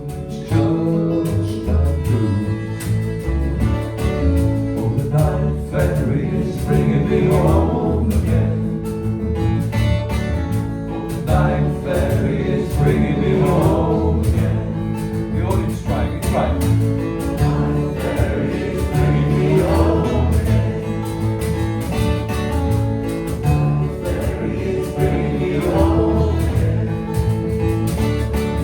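Live acoustic folk song: guitar and other instruments with several voices singing together.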